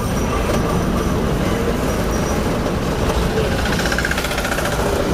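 A taxi's engine and road noise heard from inside the cabin while it drives: a steady low rumble.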